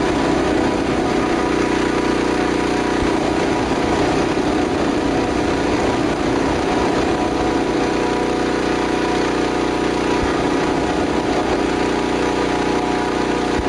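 Sound effect of a hot air balloon taking off: a steady, engine-like mechanical drone with a constant hum.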